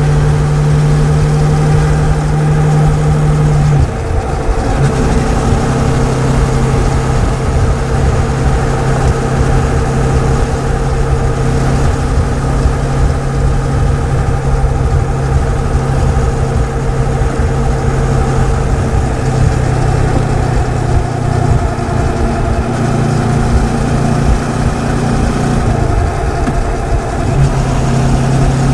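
Moto Morini X-Cape 650's liquid-cooled parallel-twin engine and exhaust running under way at a steady speed. The engine note steps down about four seconds in and shifts again twice later, as the revs change.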